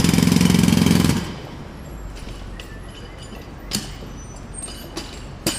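Jackhammer hammering in a fast, steady rattle that stops abruptly about a second in. Then a quieter background with two short sharp knocks, the second near the end.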